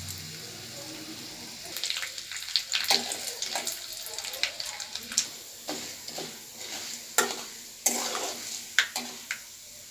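Cumin, mustard seeds and split chana and urad dal sizzling in hot ghee in a metal kadai, with a steady frying hiss. From about two seconds in, a spatula stirs and scrapes the pan in frequent sharp clicks.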